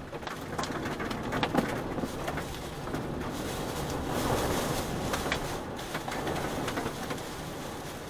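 Storm wind gusting against a parked car, with many sharp ticks of rain and wind-blown debris striking the body and windshield. The gusts swell about four seconds in.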